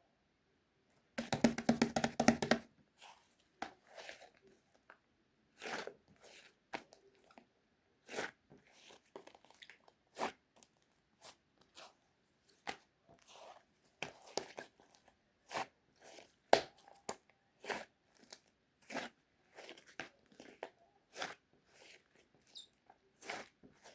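A quick rattle of many clicks about a second in, followed by irregular crisp crunches and clicks, roughly one or two a second.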